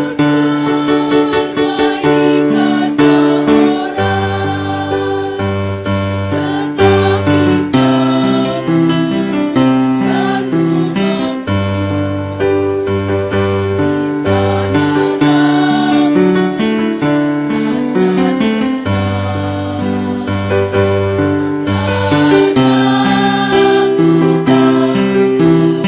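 A choir singing over instrumental accompaniment with held bass notes that change in steps.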